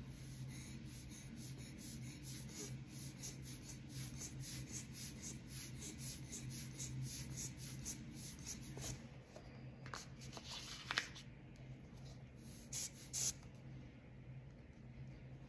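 Rubber air-blower bulb squeezed again and again by hand, short puffs of air about two or three a second, blowing wet alcohol ink across the paper. A few sharper clicks come in the second half, over a steady low hum.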